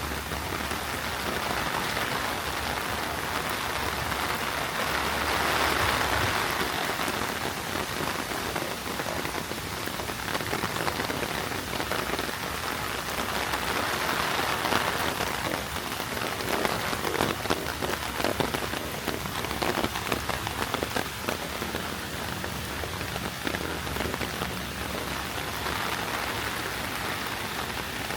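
Heavy rain falling steadily and pattering on hard surfaces, a dense hiss dotted with many individual drop ticks.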